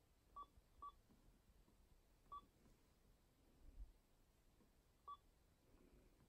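Accent 800 communication device giving short electronic beeps as its touchscreen keys are tapped: four brief beeps of one pitch, two in quick succession near the start, another about two seconds in and the last about five seconds in. Each beep confirms a key being selected to keep while hiding keys.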